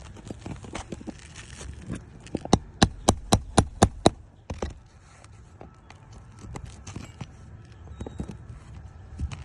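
A quick run of about seven sharp hammer strikes, roughly four a second, part of roofers working the nails loose to remove a damaged roofing piece. Lighter knocks and scrapes come before and after.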